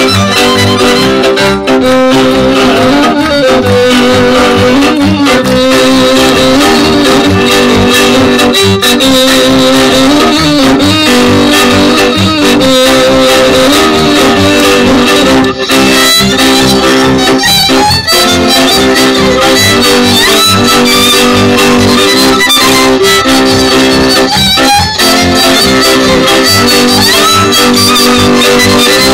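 Transylvanian Mezőség folk dance music for the "török" dance: a fiddle-led string band playing a tune over sustained chords with a steady, even beat.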